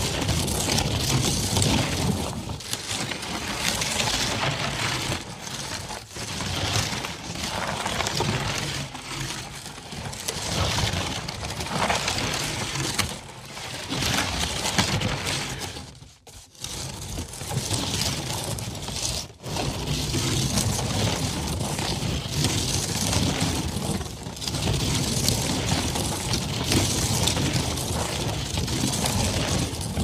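Catapult being moved along a dirt road, its wheels rolling and crunching over the ground with a low rumble. The sound drops away briefly about 16 seconds in and again, more briefly, about 19 seconds in.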